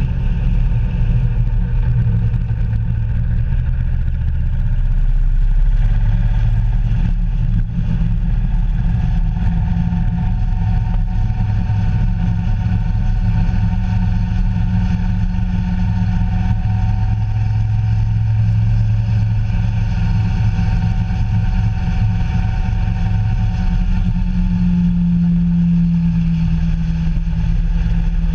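Engine of a moving road vehicle running under way, with wind and road noise. The engine note shifts as speed changes, rising about 25 seconds in.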